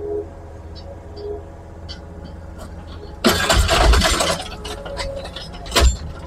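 Excavator engine running steadily, then, about three seconds in, a loud crunching scrape with heavy low thuds lasting about a second as the bucket works into the ground and debris, and another short heavy thud near the end.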